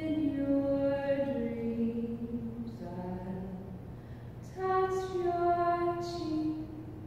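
A singing voice holding long, slow notes that step downward in pitch, in two phrases, the second starting a little higher, over a steady low hum.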